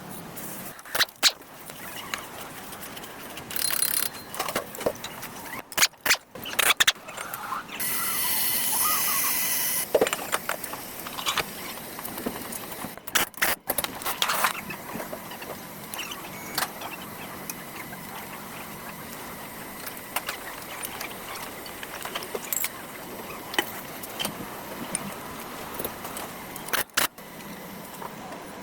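Metal tools and brake parts clinking and knocking during front brake work, with a steady hiss lasting about two seconds some eight seconds in.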